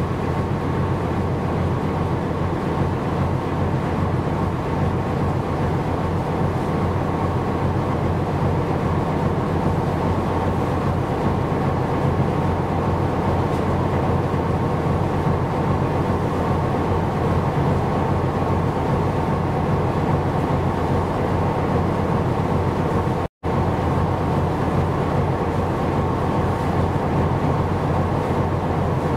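Steady engine drone of a ship underway with a rush of water noise, level throughout. It cuts out for an instant about three-quarters of the way through.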